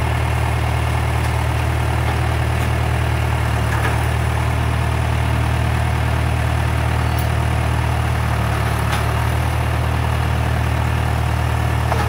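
John Deere farm tractor engine running steadily at idle, a constant low drone with no change in speed.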